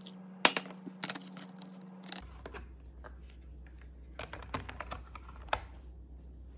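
Computer keyboard typing: sharp key clicks in short, irregular runs over a steady low hum.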